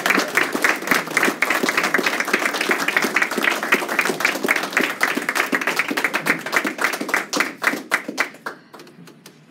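Audience applauding, a dense run of many hands clapping that thins out into a few scattered claps and dies away near the end.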